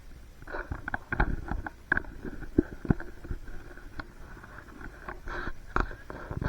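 Narrow-gauge train running, with irregular knocks and clatter over a steady high-pitched squeal.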